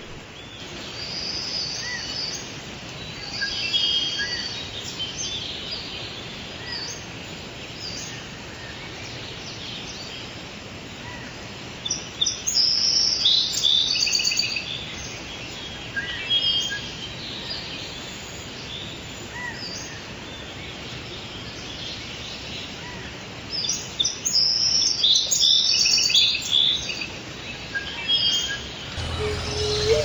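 Small songbirds chirping and calling in short high-pitched bursts, busiest about a second in, again from about twelve to sixteen seconds, and from about twenty-four to twenty-eight seconds, over a steady faint outdoor hiss.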